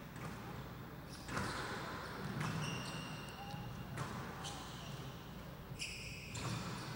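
A squash rally: the ball struck by rackets and smacking the court walls, about six sharp hits a second or so apart, with high squeaks of shoes on the court floor in between.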